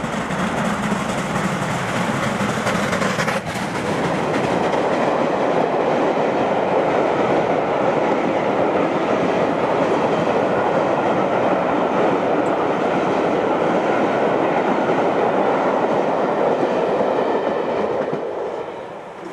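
Steam locomotive with a train of coaches passing close by. The locomotive goes by a few seconds in, then the coaches roll past with a steady noise of wheels on rail, which drops away near the end.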